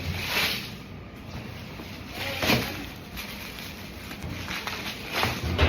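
Handling noise from unboxing: a few short rustling swishes about half a second in, about two and a half seconds in and near the end, over a low rumble.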